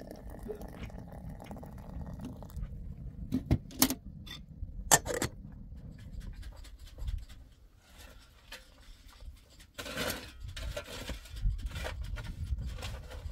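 Water poured from a kettle into a metal teapot, followed by a few sharp clinks of metal. Near the end, a shovel scrapes and grates through wet mortar and stones.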